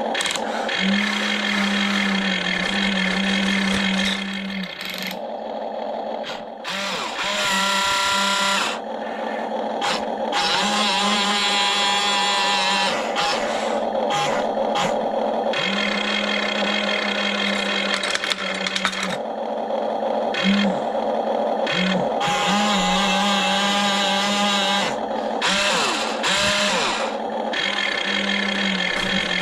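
Electric motors of an RC excavator whining as it works. The hum starts and stops in stretches of a few seconds, with whines rising and falling in pitch in between.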